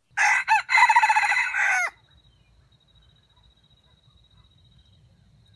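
A junglefowl rooster crowing once: a short crow of under two seconds with a brief break near the start, ending in a falling note.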